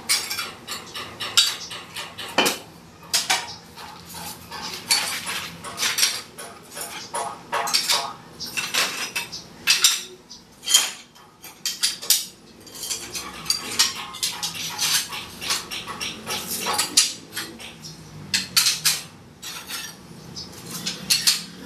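Hard tiles clinking and clattering as they are picked up and stacked by hand, in irregular runs of sharp clacks throughout.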